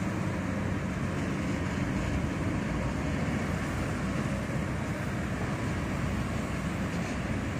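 Diesel engines of two Kobelco SK200 crawler excavators running steadily as they dig and swing soil into dump trucks, a continuous low rumble.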